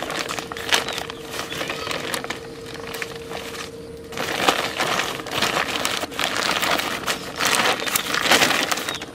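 Printed plastic sack rustling and crinkling as it is handled and twisted shut by hand. The rustling comes in irregular bursts and grows louder and busier from about four seconds in.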